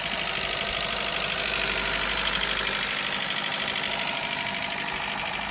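Ford C-Max engine running at idle with a rapid knocking clatter, the engine knock the video is about. It swells slightly about two seconds in, then settles.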